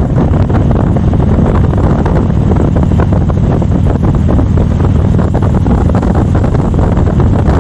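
Heavy wind buffeting the microphone over a low, steady rumble.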